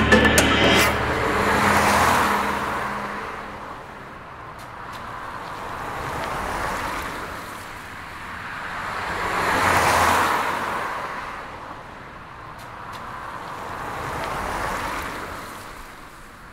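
Music ends in the first second, then cars pass one after another on a street: four swells of road noise, each rising and fading over a few seconds, dying away near the end.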